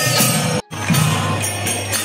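Devotional temple kirtan music with jingling hand percussion and a steady drone. The sound drops out for a split second a little after half a second in, then resumes.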